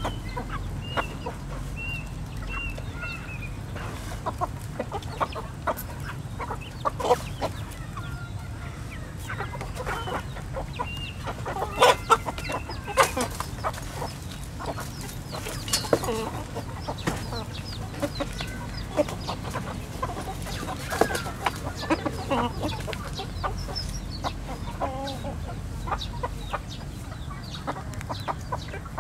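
A flock of chickens clucking and calling while they feed, with a run of short high peeps in the first few seconds and scattered sharp calls throughout.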